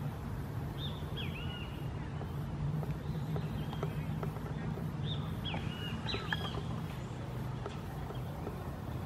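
Birds singing outdoors: a short phrase of arched, whistled notes, heard about a second in and again around five to six seconds. Under it runs a steady low hum, with faint scattered ticks.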